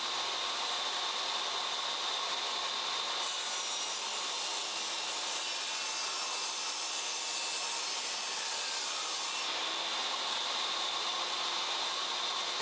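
Benchtop table saw running with a steady high whine, ripping a strip off a wooden board; the cutting sound is strongest from about 3 to 9 seconds in.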